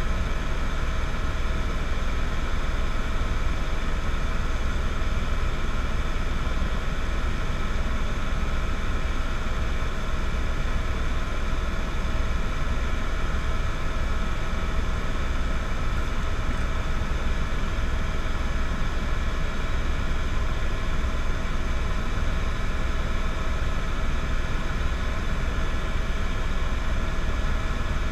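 Steady drone of a running vehicle engine: a constant rushing noise with several unchanging hum tones over it.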